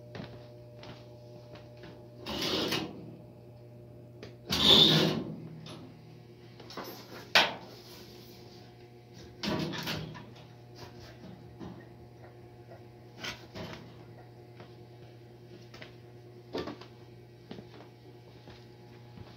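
Fireplace glass doors and mesh screen being handled, with a few clanks and scrapes, the loudest about five seconds in, and a sharp click a little later. Under it a wood fire crackles faintly over a steady low hum.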